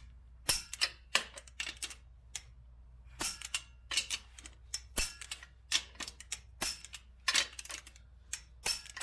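Torque wrench ratcheting in short bursts of sharp clicks as the 1989 F150's wheel lug nuts are torqued down to 100 foot-pounds.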